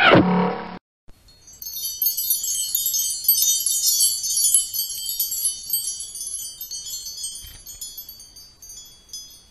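A brief falling swoosh sound effect, then a shimmer of high, tinkling chimes that thins out and fades over the last few seconds.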